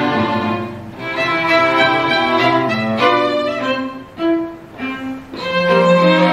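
String quartet (two violins, viola and cello) playing held, bowed notes. The sound thins out briefly about a second in and again in short notes past the middle. A low held note comes in near the end.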